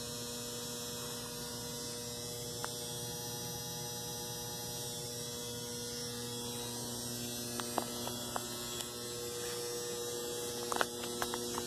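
Steady electrical mains hum, with a few faint clicks in the second half.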